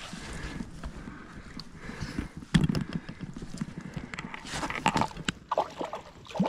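Irregular splashing and wet knocks of a freshly caught brook trout being handled in shallow water, with the loudest knock about two and a half seconds in.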